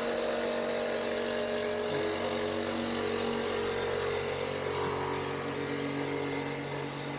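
Steady drone of idling and running vehicle engines in street traffic, with a lower engine hum joining about two seconds in.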